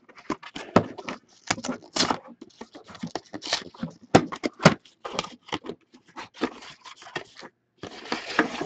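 Plastic wrap and card-box packaging crinkling, crackling and tearing as a sealed box of hockey cards is opened: a run of irregular sharp crackles and scrapes, with a longer tearing rustle near the end.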